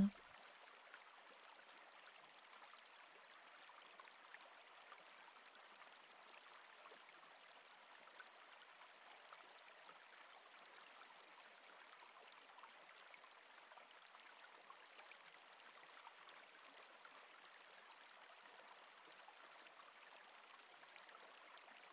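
Faint, steady murmur of flowing river water.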